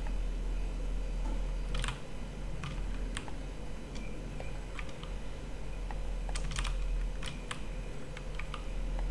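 Scattered, irregular clicks of a computer keyboard and mouse being operated, over a steady low hum.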